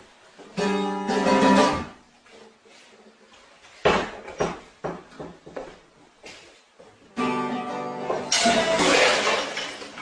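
Acoustic guitar strummed, each chord ringing out: once about half a second in and again about seven seconds in. A sharp knock comes about four seconds in, and a loud noisy burst follows just after the second chord.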